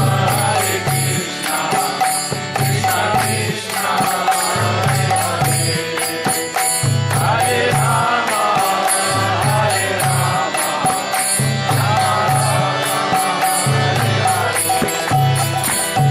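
Kirtan: voices chanting a mantra over a held harmonium drone, with a two-headed mridanga drum beating a steady, repeating rhythm and karatala hand cymbals clinking fast throughout.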